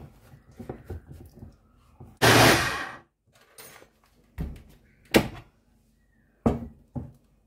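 Plastic personal-blender cup being handled on its motor base. Light clicks and rustling come first as the blade base is screwed on. About two seconds in there is one loud burst of noise under a second long, then several sharp plastic thunks as the cup is pressed onto the base and lifted off.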